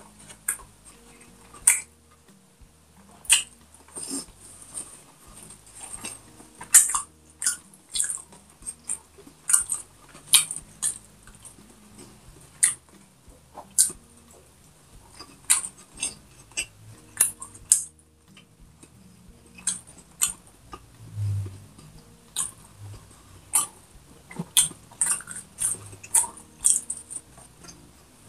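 Close-miked chewing and lip-smacking as pork is eaten by hand: wet mouth clicks and smacks at irregular intervals, several a second in places.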